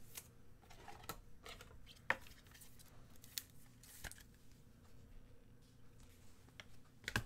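Faint clicks and rustles of trading cards and a rigid plastic card holder being handled, with a few sharper clicks among them.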